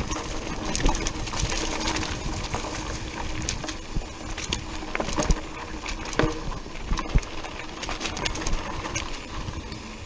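Mountain bike rattling over a rocky, leaf-covered dirt trail: tyres crunching over loose stones, with sharp knocks and clatters as the bike hits rocks and bumps, and wind rumbling on the microphone.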